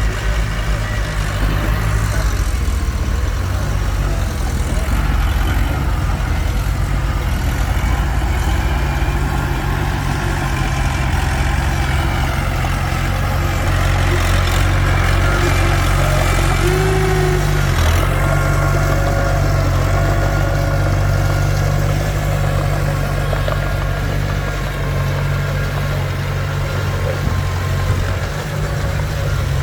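Komatsu D21P bulldozer's diesel engine running steadily with a deep, even engine note, and a fainter whine higher up from about halfway through.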